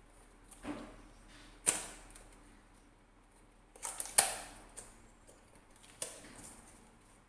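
A microphone's retail box being handled and opened by hand: a few sharp clicks and knocks with pauses between them, the loudest about a second and a half and about four seconds in.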